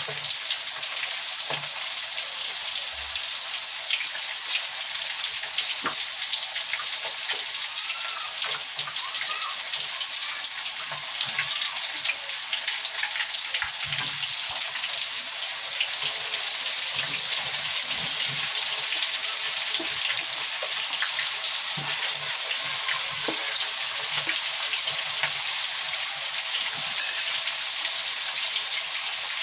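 Breaded chicken pieces deep-frying in hot canola oil: a steady sizzle with scattered crackles and pops.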